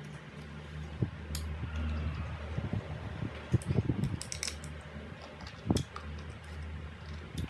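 A person biting into a crisp slice of green mango and chewing it, with a cluster of sharp crunchy clicks about four seconds in and a few single clicks elsewhere, over a steady low hum.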